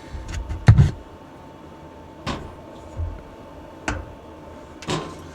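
A handful of separate knocks and clunks from hardware being handled and fastened, the loudest a double knock about a second in, over a faint steady high hum.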